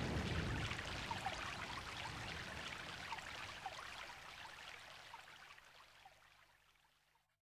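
The closing fade-out of a 1980s Argentine rock album track: a hissing wash of sound with faint, scattered short notes, dying away steadily until it cuts to silence near the end.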